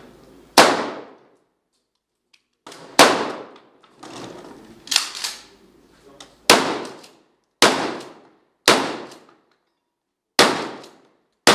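Gunshots fired at an irregular pace, about nine in all, each sharp crack followed by a short ringing echo; two come close together near the middle.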